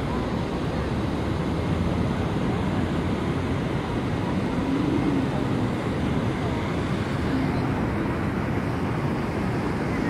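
Steady city street traffic noise, a constant rumble of cars with no single event standing out.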